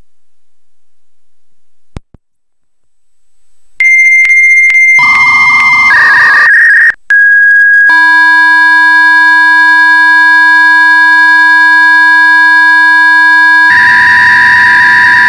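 Two V.21 modems handshaking and connecting over a line: the answering software modem sends a steady high answer tone broken by clicks about every half second, then both modems trade short warbling tones. After a brief gap their two steady carrier tones, one higher and one lower, sound together. About 14 s in, the higher tone starts warbling as the software modem sends text data.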